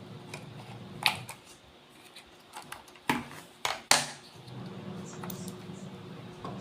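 Sharp handling clicks and knocks as a 9 V battery is taken out of a Fluke 8024A multimeter's battery compartment: one click about a second in, then a quick cluster of three around three to four seconds in.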